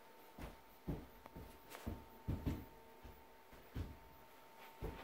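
About ten irregular soft thumps and knocks, unevenly spaced, over a faint steady hum.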